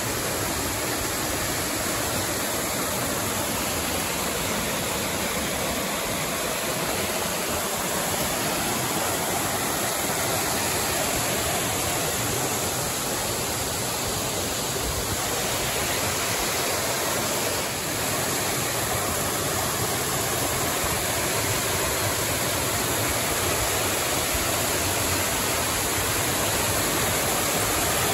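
Small creek waterfall cascading over boulders and fallen logs: a steady rush of falling water.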